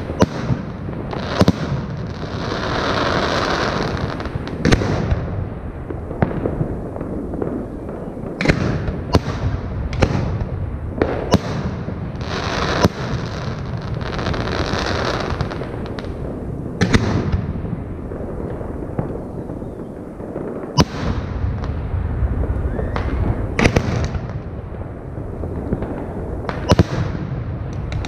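Aerial firework shells bursting in a display, a dozen or more sharp bangs at irregular intervals. Between them come stretches of hissing crackle, over a steady low rumble.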